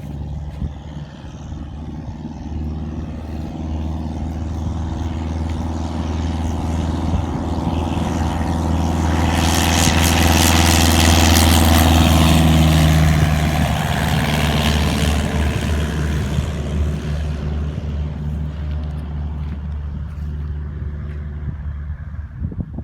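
Cessna 172 taking off under full power, its piston engine and propeller droning steadily. The sound grows louder to a peak about halfway through as the plane passes, then fades away.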